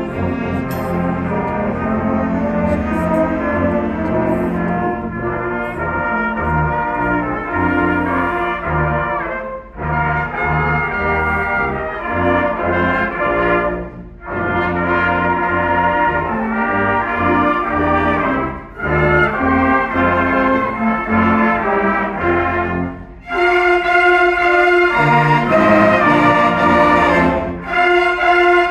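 Live school concert band with strings playing a medley of Christmas carols, brass carrying the melody. The music goes in phrases with short breaks between them, and grows louder over the last few seconds.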